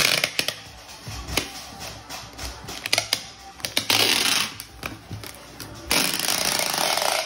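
Packing tape unrolling from a handheld tape dispenser as it is run along a cardboard box: two long rasping screeches of tape pulling off the roll, about four seconds in and again near the end, with taps and clicks of the dispenser and box between them.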